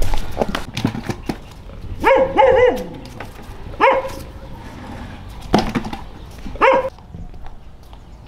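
Dog barking: a quick run of three or four barks about two seconds in, then three more single barks spaced a second or so apart. Light knocks and clicks come in the first second or so.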